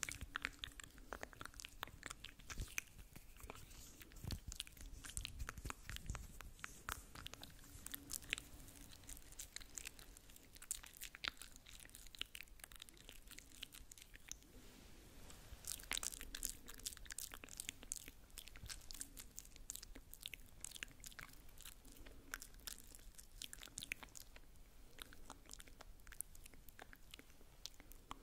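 Close-miked ASMR mouth sounds: soft wet clicks and smacks of tongue and lips, many each second in an irregular stream, easing off briefly about halfway through.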